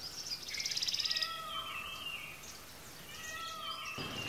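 Wild birds calling in forest: a short, arching, meow-like call repeated about every two seconds, with a fast high trill in the first second and a few short chirps.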